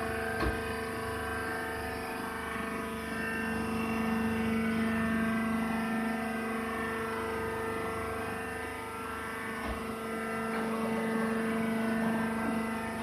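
Hydraulic wood shavings baler running: a steady machine drone of several held tones from its motor and hydraulic pump, with a faint knock about half a second in and another near ten seconds.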